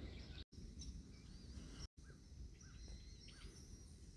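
Faint outdoor ambience: a steady low rumble with small birds chirping several times and a few thin, wavering high calls in the second half. The sound drops out twice briefly at clip cuts.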